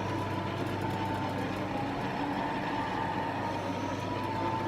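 Steady machine hum with a thin, high, even whine running over it.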